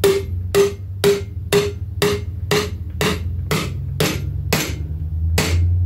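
Hammer striking a bearing driver about twice a second, tapping a new bearing into a Honda TRX250R axle carrier. The first few hits ring with a clear tone that dies away over the next couple of seconds, so the later hits sound duller: the change in pitch that shows the bearing is seating. A steady low hum runs underneath.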